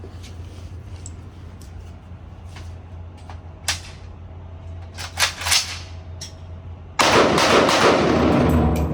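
Gunshots at a firing range: a few single sharp cracks spaced a second or more apart, then, about seven seconds in, a sudden loud stretch of dense blast noise lasting about two seconds.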